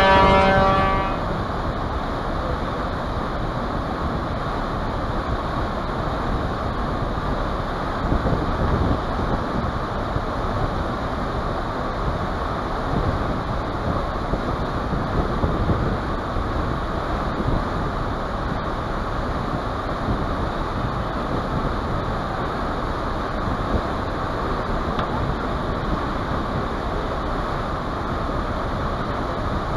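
A ship's horn blast from the ferry cuts off about a second in, followed by a steady rush of wind, wake water and engine noise on the deck of the moving car ferry.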